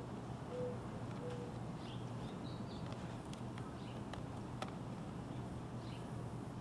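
Faint outdoor background with distant birds chirping in short high calls, and three short low cooing notes in the first second and a half, over a steady low hum. A few faint clicks come in the middle.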